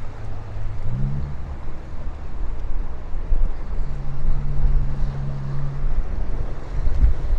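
Wind buffeting the microphone with a low rumble, over an engine drone. The drone steps up in pitch about a second in and holds a steady hum through the middle.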